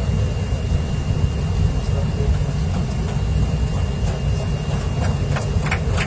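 Kolkata Metro train running through the tunnel under the Hooghly River, heard from on board: a steady low rumble, with a faint steady high whine and a series of sharp clicks building near the end.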